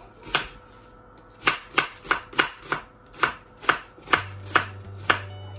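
Kitchen knife slicing a red onion on a plastic cutting board: one cut, a pause of about a second, then a run of about ten quick cuts, roughly three a second, each a sharp knock of the blade on the board.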